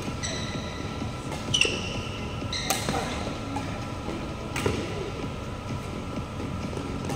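Badminton rally: court shoes squeak sharply on the court floor several times in the first three seconds, and rackets strike the shuttlecock with sharp hits near three seconds and about four and a half seconds in.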